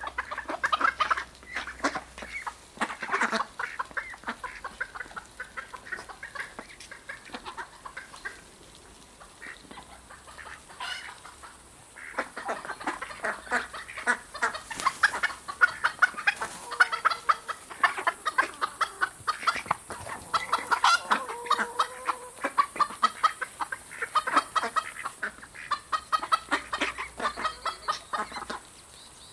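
Indian Runner and mallard-type ducks feeding on scattered grain: a rapid, continuous chatter of short low calls mixed with quick pecking ticks. It eases off briefly about eight seconds in and grows busier again from about twelve seconds.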